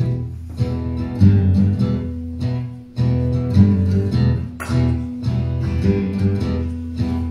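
Acoustic guitar strummed solo in a steady rhythm: an instrumental break between the verses of a folk song, with no singing.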